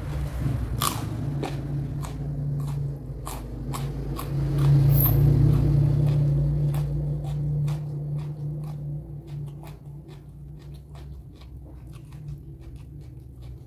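Close-up chewing and biting of raw mature jengkol (dogfruit) beans, with many sharp crunches that are densest in the first several seconds. A low steady hum runs underneath, loudest around the middle and fading in the second half.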